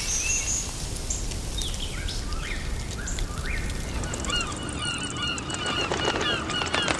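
A flock of gulls calling: scattered short cries at first, thickening about four seconds in into a dense chorus of overlapping, repeated calls.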